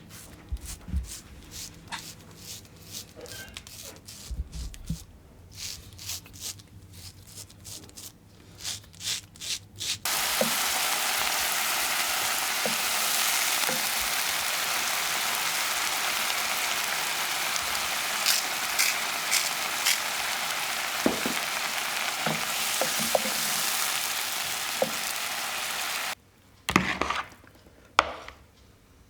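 A steady sizzling hiss dotted with crackles starts suddenly about ten seconds in and cuts off suddenly near the end. Before it comes a run of soft taps and clicks.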